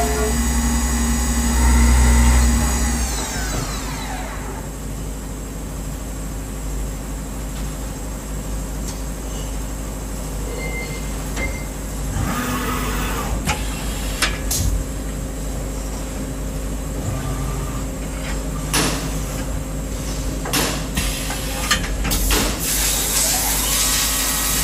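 CNC milling machine cutting a casting with a small end mill, then its spindle winding down in a falling whine about three seconds in. The machine then hums quietly while a series of sharp clicks and clunks sounds, typical of an automatic tool change, and the noise builds again near the end as the next tool starts.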